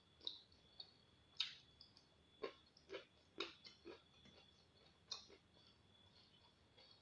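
Close-up chewing of raw lalapan vegetables: soft, irregular crunches and wet mouth clicks, a dozen or so, the loudest about a second and a half in. A faint steady high whine runs underneath.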